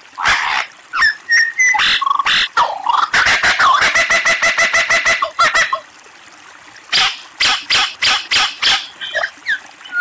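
Superb lyrebird singing a varied run of mimicked calls: sharp clicks and call notes, a fast run of repeated notes in the middle, a brief pause, then a string of loud sharp calls near the end.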